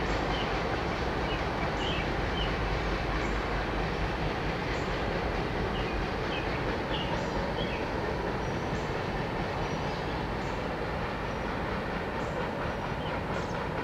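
Freight cars of a long train rolling along the rails, a steady rumble and clatter of steel wheels on track that slowly fades as the train moves away.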